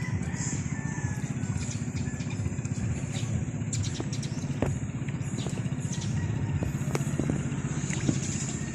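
A small engine running steadily at an even pace, with a few light clicks over it.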